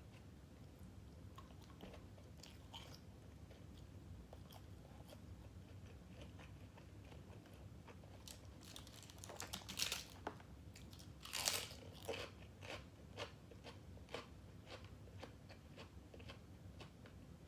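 Close-miked eating: a person bites and chews crunchy food. Two loud crunching bites come a little past the middle, with quieter chewing clicks around them.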